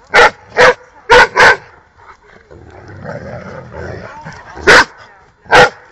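Dogs at rough play, with six short, sharp barks: four in quick succession in the first second and a half, then two more near the end after a quieter stretch.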